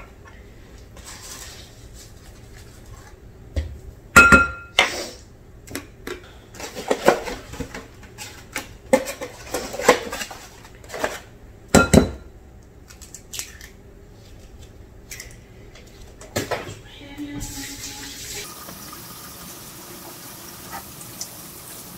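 Kitchen clatter at the counter: a scattering of sharp knocks and clinks from utensils and an egg carton being handled, the loudest about four and twelve seconds in. Then a kitchen tap runs steadily into the sink for the last few seconds.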